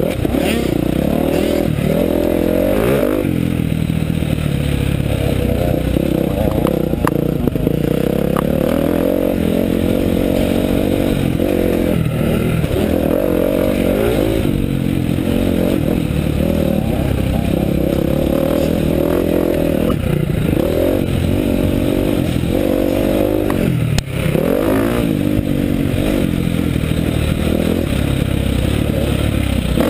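Motocross bike engine heard from on board, revving up and falling back again and again as the bike rides a dirt track, with a brief sharp drop off the throttle about two-thirds of the way through. The bike's chassis rattles underneath.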